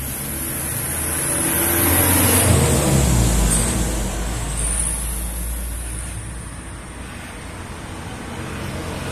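A road vehicle passing by, its rumble swelling to loudest about two to three seconds in and then fading. Under it runs the steady buzz of a corded electric hair clipper cutting hair.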